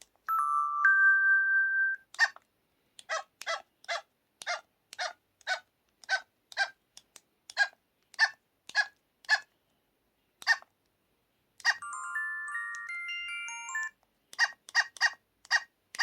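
LG-KT1000 mobile phone playing its built-in sound effects through its small speaker: a held two-tone electronic chime at the start, then a string of short blips roughly every half second, and a short stepping electronic melody near the end.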